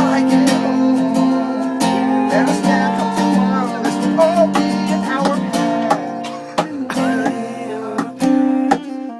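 Music: guitar strumming sustained chords, with a wavering melody line over them.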